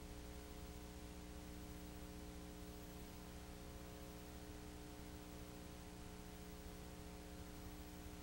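Steady electrical hum with a layer of hiss, unchanging throughout; no engine or crowd sound is heard.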